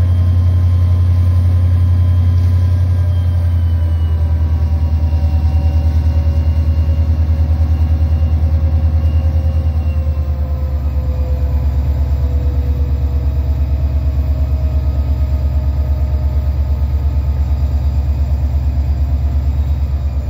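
EMD SD40-2's turbocharged 16-cylinder 645E3 diesel prime mover running under load during a load test: a loud, deep, pulsing drone. Higher whining tones above it slowly fall in pitch, and the sound eases slightly about halfway through.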